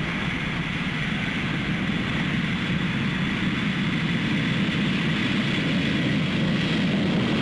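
Jet engines of a Boeing 747 taking off and climbing out overhead: a steady rushing jet noise that grows slowly louder.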